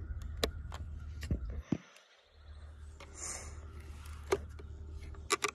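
Sharp plastic clicks and knocks from a cellular trail camera being handled, with several in quick succession near the end and a short rustle about 3 seconds in, over a low steady rumble.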